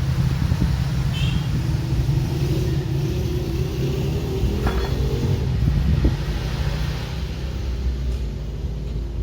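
A motor vehicle engine running with a steady low rumble, a little louder and higher around the middle.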